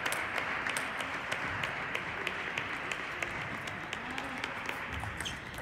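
Table tennis balls clicking off bats and tables from several tables at once: many irregular, overlapping clicks over a steady hiss.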